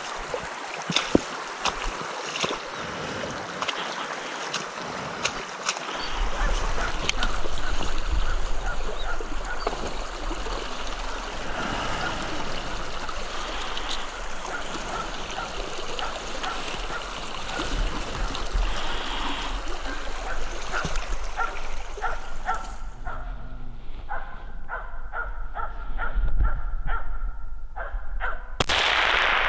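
Footsteps splashing and sloshing through a shallow rocky stream, with irregular clicks and knocks of boots and gear, and rushing water; the sound thins out and turns quieter about three-quarters of the way through.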